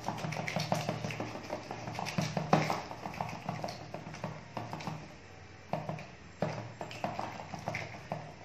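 Fingers patting a ball of ragi (finger millet) dough flat on a plastic sheet over a rolling board, making a quick, uneven series of soft slaps and taps.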